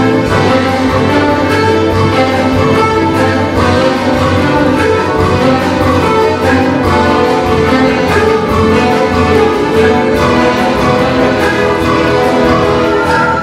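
Folk-instrument orchestra of violins, plucked domras and accordions playing a fast, busy passage, with an accordion soloist; loud and unbroken.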